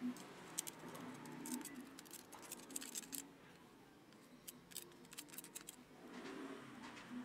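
Thin metal pick clicking and scraping against the steel ring gear and planet gears inside a DeWalt XRP cordless drill's planetary gearbox, working out old grease. Light clicks come in quick runs, in two spells a few seconds apart.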